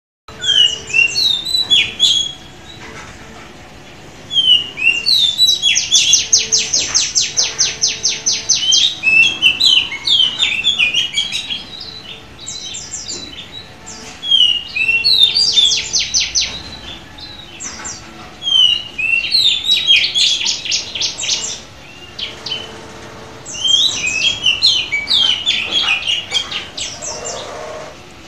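Oriental magpie-robin (kacer) singing in repeated bouts of varied whistled and chirped notes, several bouts carrying a fast, buzzing rattle, with short pauses between bouts.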